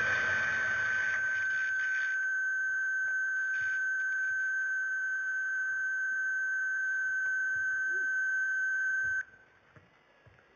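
A steady, high electronic tone from the film's soundtrack, played over loudspeakers. It holds one pitch for about nine seconds and then cuts off suddenly, leaving only faint room noise with a few small knocks.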